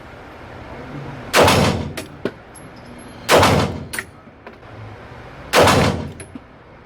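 Three shots from a Smith & Wesson M&P 2.0 Metal pistol, about two seconds apart, each with a short echo in an indoor range.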